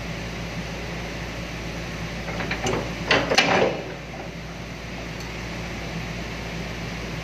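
Excavator engine running steadily. About two and a half seconds in, a short, rough crackling burst lasting about a second and a half as the bucket presses down on the solid tyre to force it onto the rim.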